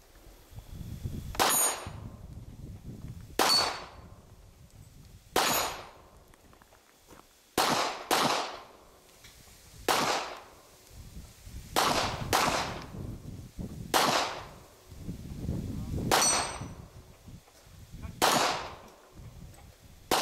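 Handgun shots fired at a deliberate pace of about one every two seconds, some in quick pairs, around eleven in all. Several are followed by the short high ring of steel target plates being hit.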